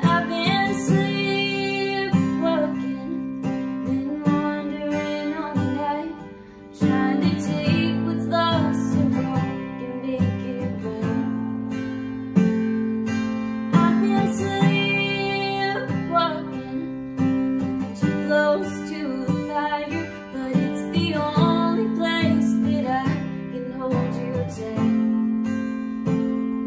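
A young woman singing with her own strummed steel-string acoustic guitar, with a brief drop in level about six seconds in before the guitar and voice come back.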